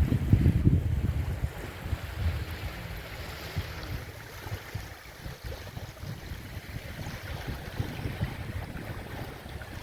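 Wind buffeting the microphone, strongest in the first second and then easing, over a steady wash of surf on the beach.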